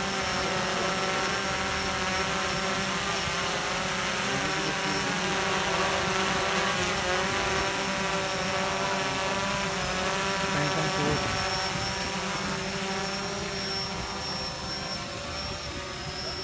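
DJI Phantom 4 quadcopter's propellers whining in flight, a layered buzzing whose pitch wavers up and down as the drone manoeuvres, easing slightly near the end.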